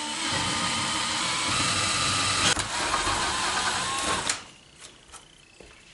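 Cordless drill running steadily for about four seconds, then stopping, followed by a few light clicks.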